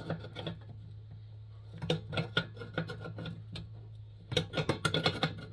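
Metal clicks and clinks of an open-end wrench working a fitting on a Coleman 220J lantern, in a short cluster about two seconds in and a longer one near the end, over a steady low hum.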